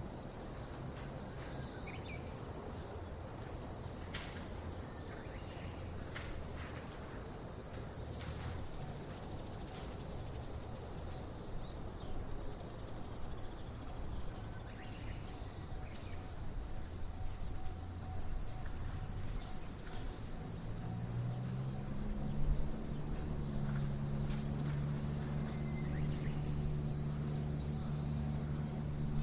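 Insect chorus, crickets or similar, a dense continuous high-pitched trilling that never lets up. A faint low steady hum joins about two-thirds of the way in.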